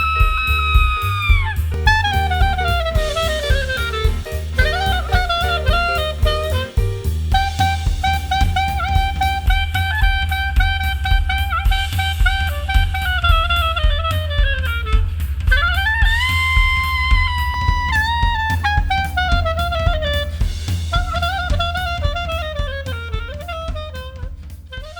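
Instrumental swing jazz: a horn melody with bends and slides over drum kit and bass, fading out near the end.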